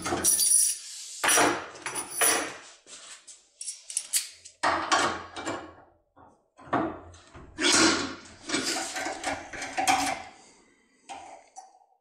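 Irregular metallic knocks and clatter as a lock cylinder clamped in a steel bench vise is handled and shifted, with an impression tool in its keyway. The clatter comes in clusters, with a short lull about halfway, and ends in a few light clicks.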